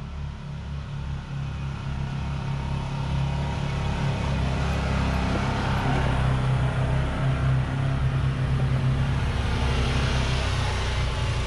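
Can-Am Maverick Trail 1000 side-by-side's Rotax V-twin engine running steadily at low trail speed, with a hiss that grows louder over the first several seconds.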